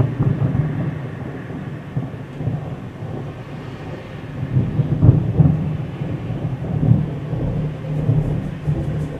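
Rolling thunder rumbling after a close lightning strike, swelling and easing, with the loudest peals about five and seven seconds in.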